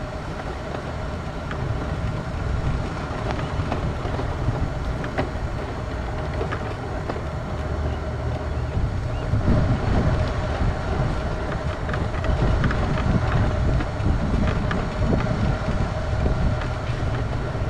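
Quickie power wheelchair's electric drive motors running with a steady whine as it rolls over asphalt, with wind rumbling on the microphone, a little louder from about halfway through.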